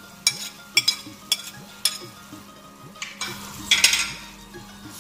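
Chopped tomatoes and green chillies being scraped off a plate into a wok of frying chicken: four sharp clicks against the pan about half a second apart, then a short rush of sizzling a little past three seconds in.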